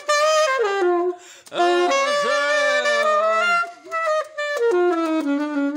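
Saxophone played solo in short expressive phrases, with notes bending and sliding in pitch and brief pauses between phrases.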